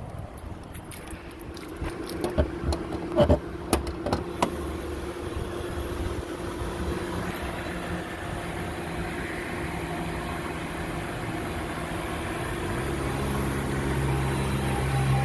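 A few clicks and knocks in the first seconds as the hood is released and lifted, then the Jaguar XJ8's 4.2-litre naturally aspirated V8 idling steadily, running well. Near the end a passing motorcycle grows louder over the idle.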